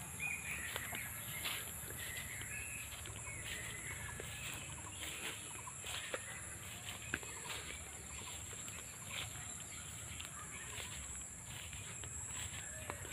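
Outdoor ambience of birds calling now and then, with short chirps mostly in the first few seconds, over a steady high-pitched hiss and scattered light clicks.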